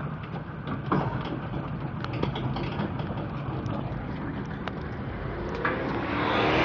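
Vehicle engine running slowly, with light rattles. Near the end another vehicle approaches, its engine note rising and its tyre noise growing louder.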